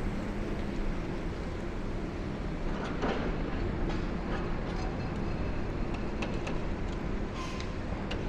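High-reach demolition excavator working: its diesel engine running steadily, with a few short knocks and cracks of breaking concrete about three seconds in and again later.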